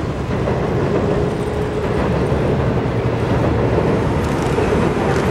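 Electric passenger train crossing a steel railway bridge: a steady rolling noise of wheels on the rails and bridge.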